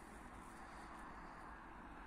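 Near silence: faint, steady outdoor background hiss with no distinct events.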